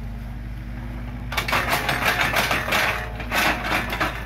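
Komatsu PC45 mini excavator's diesel engine running steadily under a hydraulic load. From about a second in, a run of rapid, irregular clattering and scraping lasts about three seconds as the bucket digs mud and debris out of the trench.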